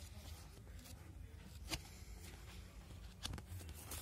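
Faint handling of a paperback book: page rustling with two short soft rubs or taps, about a second and a half and three seconds in, over a low steady hum.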